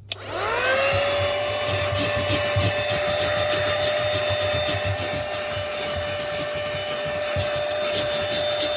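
A cheap handheld car vacuum powered from a cigarette-lighter socket switches on with a click. Its small motor whines up to speed within about half a second, then runs at a steady high whine while the nozzle rubs and scrapes over the surface.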